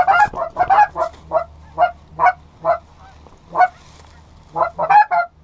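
Goose honks and clucks in a quick, irregular series of short calls, a gap of about a second about three seconds in, then a fast cluster of calls near the end.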